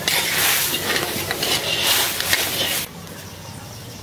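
Loud steam hiss with a crackling sizzle from a wok of broth boiling hard, cutting off suddenly a little before the end.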